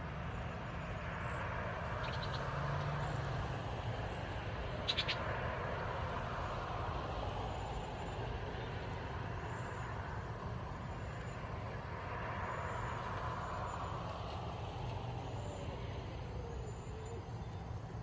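Distant road traffic: a steady low rumble with the slow rise and fall of vehicles passing by. A brief sharp click about five seconds in.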